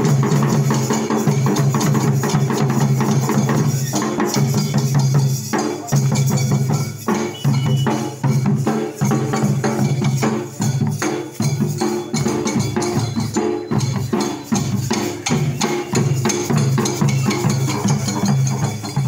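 Dollu Kunitha troupe drumming: large dollu barrel drums beaten with sticks in a fast, dense rhythm, with hand-held metal percussion among the strokes.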